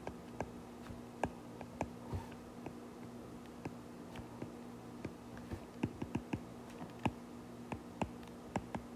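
Stylus tapping and clicking on a tablet screen during handwriting: faint, irregular clicks, a few each second, over a steady low hum.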